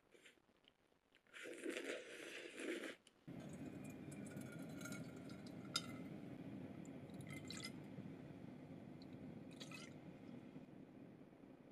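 Liquid being poured into a saucepan and dripping from a metal spoon, with a few small clinks over a steady low hum. A brief wet squishing sound comes between about one and three seconds in.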